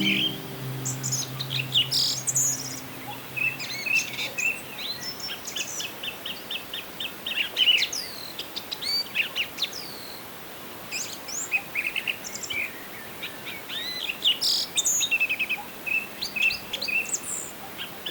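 Several small birds chirping and twittering: quick runs of short, high repeated notes and overlapping calls. A low steady hum lies under the first few seconds.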